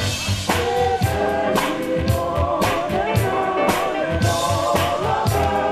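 The DJ's funk-soul dance track playing, a singing voice over a steady drum beat.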